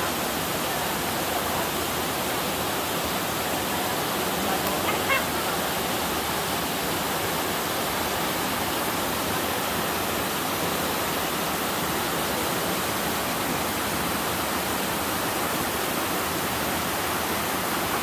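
Steady rush of a small waterfall and cascade, river water pouring over granite rocks into a pool.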